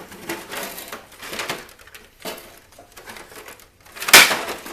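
The casing panel of a CD changer being pulled off after its screws are out: a run of short scrapes and rattles, with one sharp, loud clank about four seconds in.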